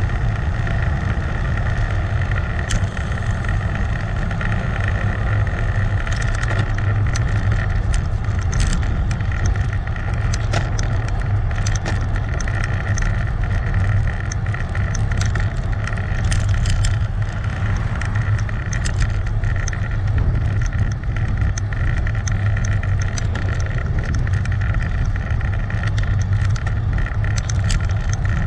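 Steady riding noise on a bike-mounted GoPro: a loud constant low rumble of wind and road. From about six seconds in it is dotted with many small sharp clicks or rattles.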